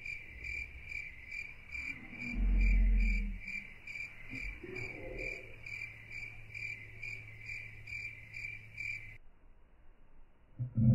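Cricket chirping in a steady rhythm, about three chirps a second, cutting off abruptly near the end. A low rumble swells and fades about two seconds in.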